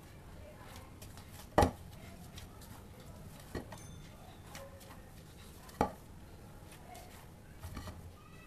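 Bread dough being kneaded by hand in a ceramic bowl, with a few sharp knocks against the bowl. The loudest knock comes about one and a half seconds in, and another near six seconds.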